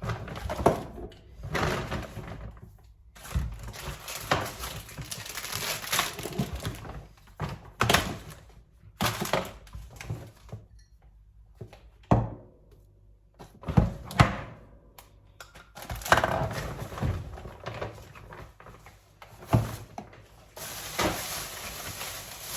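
Groceries being unpacked: a series of irregular thunks as items are set down on a surface, with rustling between them.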